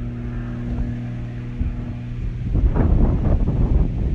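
Distant propeller aircraft's engine droning steadily overhead while it flies a smoke display, with wind buffeting the microphone, heavier about two and a half seconds in.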